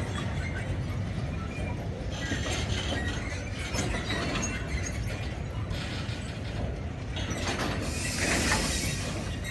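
Railway wagons rolling slowly through a shunting yard: a steady low rumble with metallic clanking and high squeals from wheels on rails and points, loudest as a screech about eight seconds in.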